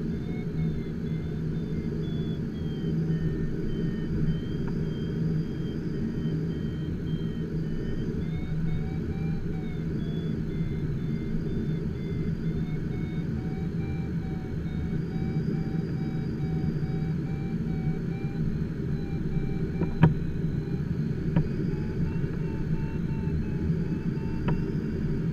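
Steady in-flight rumble inside the cockpit of an HK36 Super Dimona motorglider, with a faint beeping electronic tone that slowly wanders up and down in pitch. A sharp click comes about 20 seconds in, with two lighter clicks later.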